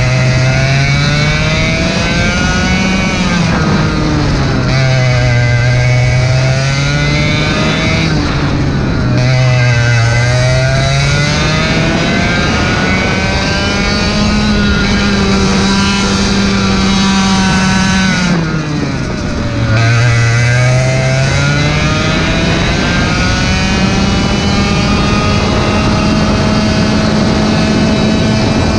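Onboard sound of a racing kart's two-stroke engine at full race pace. It revs hard up each straight and drops sharply on braking into the corners, several times, ending in a long climb in pitch. Wind and tyre noise from the onboard mic run under it.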